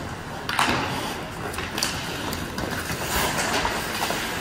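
Ice hockey rink during play: a steady hiss, a sharp knock with a ringing tail about half a second in, and several shorter clacks and scrapes after it.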